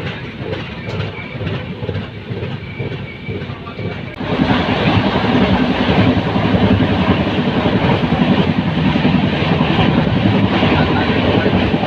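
Moving passenger train running on the tracks: steady wheel-and-carriage rumble with faint rail clicks. About four seconds in, it suddenly gets much louder and rattlier.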